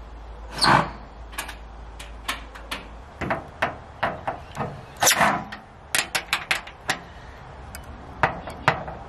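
Irregular metallic taps, clicks and knocks from tightening bolts on corrugated metal raised garden bed panels with a cordless drill and a spanner, with a few short, louder bursts.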